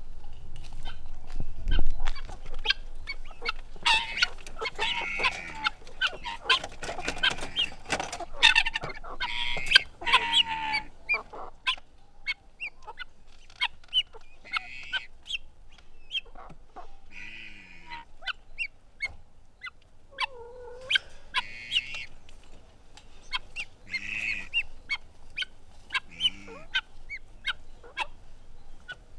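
Chicken coop ambience: hens clucking and squawking in many short, sharp calls, with some louder, longer cackles. The calls are densest in the first half and thin out to scattered clucks later.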